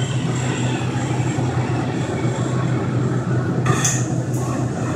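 Steady low hum of a welding machine and workshop between welds, with a brief crackle of a short arc tack on the stainless steel nearly four seconds in.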